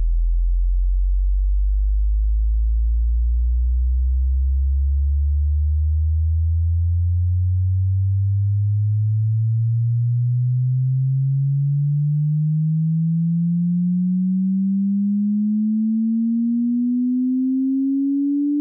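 Pure sine-wave hearing-test tone sweeping slowly and steadily upward in pitch, from a deep hum to a low tone.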